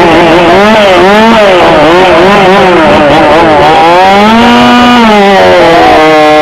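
Two-stroke competition chainsaw revved in quick blips, its pitch swinging up and down. It is then held at high revs for about a second midway and again near the end, as the saw is brought up to the log for a timed cut.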